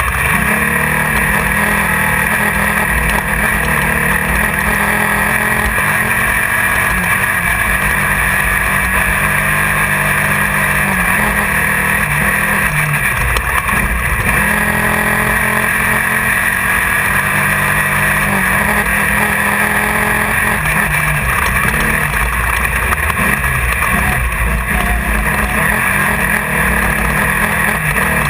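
Off-road race car's engine running hard, heard from inside the car, its pitch rising and falling with speed over a steady hiss.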